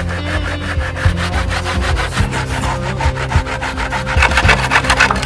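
Hand saw cutting through a timber board: a fast run of rasping back-and-forth strokes, growing louder near the end.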